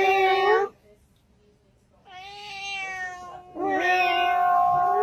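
Domestic cat meowing: three drawn-out meows, a short one at the start, a quieter one about two seconds in, and a long, loud one near the end.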